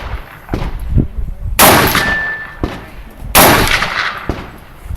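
Rifle shots fired at steel plates: two loud shots about two seconds apart, the first about one and a half seconds in, each trailing off, with fainter sharp knocks between them. A short high ring follows the first shot.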